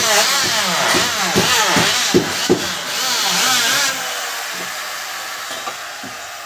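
Electric wood planer cutting a timber beam, loud and wavering in pitch for about four seconds with a few knocks, then running more quietly.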